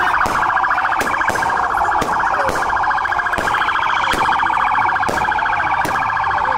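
An electronic siren sounding a rapid, steady, pulsing warble with no rise or fall in pitch, with a few sharp clicks over it.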